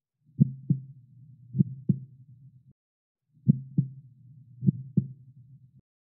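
Heartbeat sound effect: four low lub-dub double thumps about 1.2 seconds apart, in two pairs, each pair cut off by a brief stretch of dead silence.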